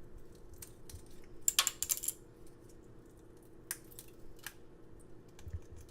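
African grey parrot cracking and nibbling a pistachio shell with its beak: a quick cluster of sharp clicks and cracks about one and a half seconds in, then a few scattered single clicks.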